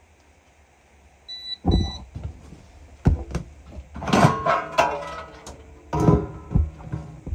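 Two short, high beeps, then a run of sharp knocks and metallic clattering from hands working around the open furnace's blower compartment.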